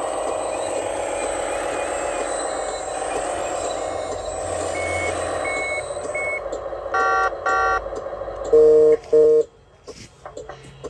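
1/14-scale RC CAT 980L wheel loader running, its drive noise steady, then three short high reversing beeps from its sound unit. Two more beeps follow, then two loud low horn honks, and the running sound stops.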